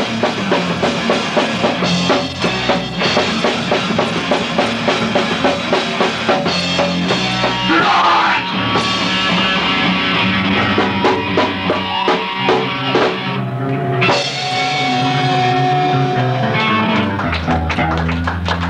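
A live rock band playing loud, with a pounding drum kit and distorted electric guitar, heard through a camcorder microphone in a small room. Near the end the band holds a long low chord.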